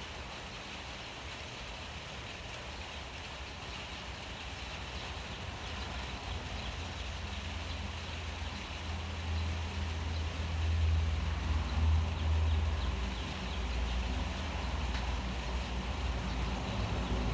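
Steady rain hiss, with a low rumble that swells about halfway through and stays strong to the end.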